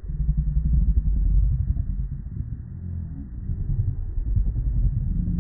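Male lions growling and snarling as they fight, a deep, uneven rumble that starts suddenly.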